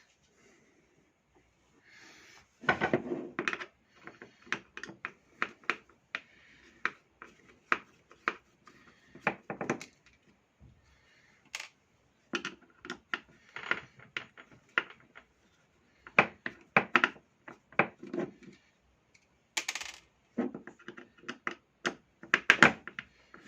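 Small metal parts and tools being handled during the strip-down of an electric chainsaw: many short clicks and clinks in irregular clusters, with a brief scrape near the end.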